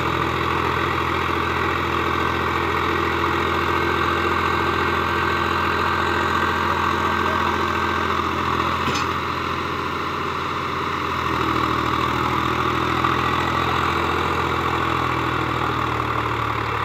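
Swaraj 834 XM tractor's three-cylinder diesel engine idling steadily while the tractor sits bogged in sand; about eleven seconds in its pitch steps up a little and it runs slightly louder.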